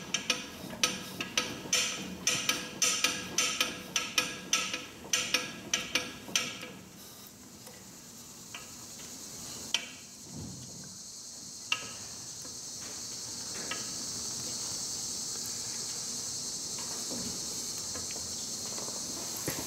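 Carriage of a Monarch Series 90 engine lathe being traversed along the bed: a run of sharp metallic clicks, about two or three a second, stops after six seconds or so. From about ten seconds in a steady high hiss holds, with a few single clicks.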